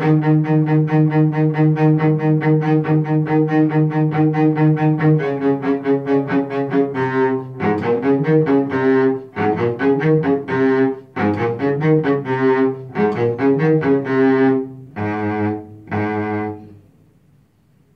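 Solo cello being bowed: fast repeated strokes on one low note for about five seconds, then phrases of changing notes with short breaks between them, stopping about a second before the end.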